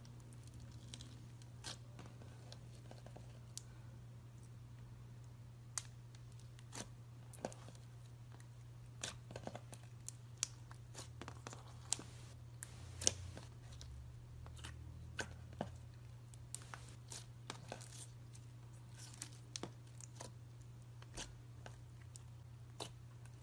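Clear glitter slime with pearl beads being poked and pressed by fingers: irregular sticky pops and crackles as it clings to and pulls away from the fingers and the table, over a low steady hum.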